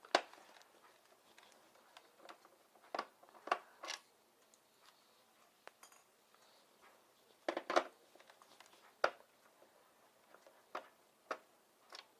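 Scattered small clicks and clinks of a screwdriver and screws as screws are taken out of a plastic LCD monitor housing, with a short cluster of knocks around the middle.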